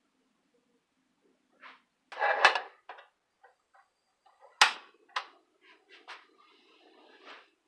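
Clicks and knocks as a portable butane cassette stove is handled. The loudest is a sharp click of its control knob about four and a half seconds in, followed by a faint steady hiss and a few softer clicks.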